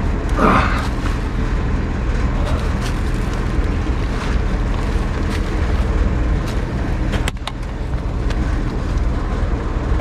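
Clothing rustling, scraping and knocks against a body-worn action camera as a man climbs out through a crawl space vent, over a steady low rumble on the microphone. A brief voice sound about half a second in and a sharp click about seven seconds in.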